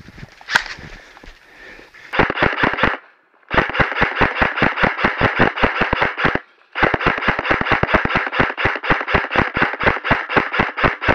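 Airsoft rifle firing on full auto in three bursts of rapid, evenly spaced shots: a short burst about two seconds in, then two longer strings with a brief pause between them.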